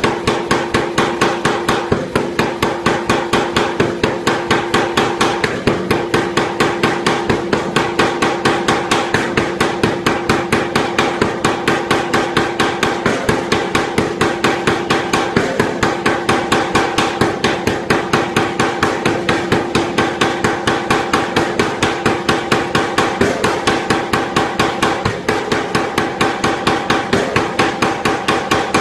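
Anyang pneumatic power hammer pounding a red-hot iron bar between its dies in a rapid, steady run of even blows.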